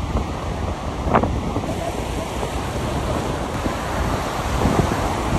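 Ocean surf breaking and washing ashore, with wind buffeting the phone microphone into a steady roar. A brief high-pitched cry rises above it about a second in.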